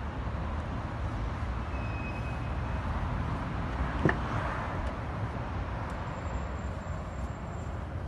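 Steady low vehicle rumble with a hiss, and one sharp click about four seconds in.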